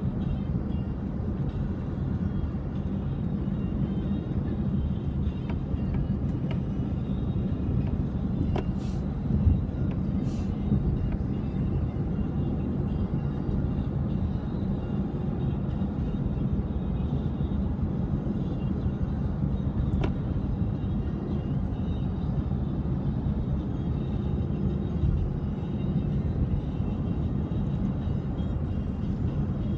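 Steady low rumble of road and engine noise inside a car cruising on an expressway, with music playing under it.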